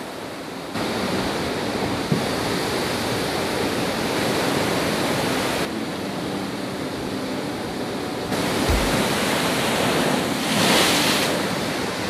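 Heavy storm surf: large waves breaking against and over a concrete pier, a continuous rush of water with wind on the microphone. The level jumps abruptly a few times, and a louder surge of breaking water comes near the end.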